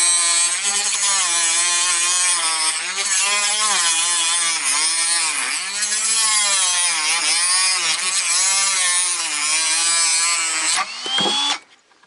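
Electric power tool cutting plastic pipe, its motor running with a steady pitch that sags and wavers each time it bites into the material. It shuts off near the end.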